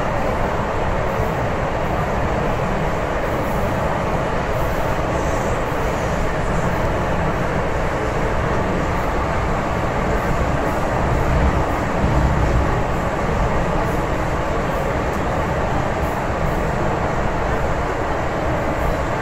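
MTR Tsuen Wan Line M-train running through a tunnel, heard from inside the car: a steady, loud rumble of wheels on rail and tunnel noise that swells slightly about eleven to thirteen seconds in.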